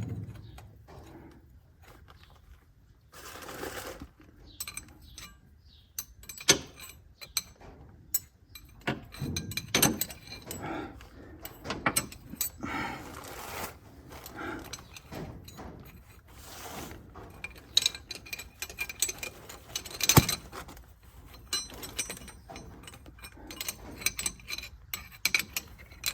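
Hand wrenches clinking, scraping and knocking against a seized fitting as it is worked on, in irregular metal clicks with one sharp click about twenty seconds in; the fitting is stuck fast and will not come loose.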